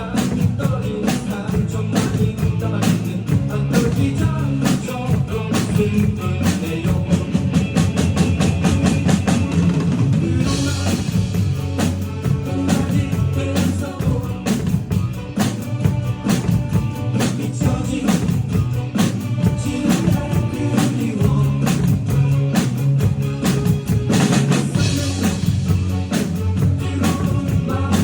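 A drum group playing along to music with a steady beat: rapid drum-kit strokes with bass drum and rimshots over a pitched bass line and some singing, with cymbals crashing out about ten seconds in and again near the end.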